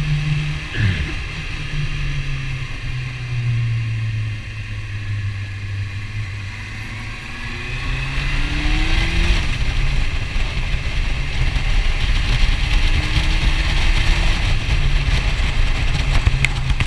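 Motorcycle engine running while riding, with wind rushing over the tank-mounted microphone. The engine note drops sharply about a second in, runs steady, then climbs twice as the bike pulls away, dropping at a gear change between, while the wind noise grows louder with speed.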